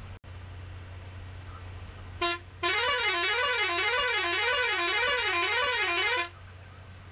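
A bus's musical horn: a short blip about two seconds in, then a warbling tone whose pitch rises and falls over and over for about three and a half seconds before cutting off. A steady low hum from the bus's engine runs under it.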